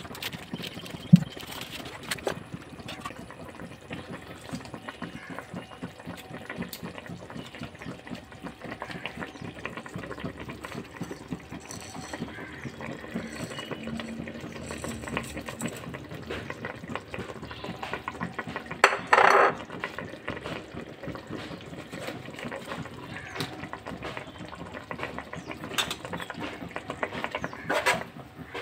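Onion and tomato mixture bubbling and sizzling in a pot, a steady crackle of small pops. A brief louder burst comes about two-thirds of the way through as whole spices go in, and a spoon stirs and scrapes the pot near the end.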